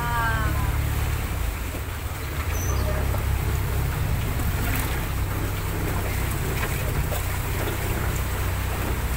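A small passenger boat's engine running steadily, a low drone with the boat under way. A brief falling-pitched tone sounds right at the start.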